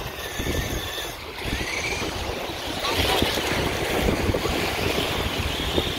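Wind buffeting the microphone in uneven gusts over the steady wash of small waves on the shore.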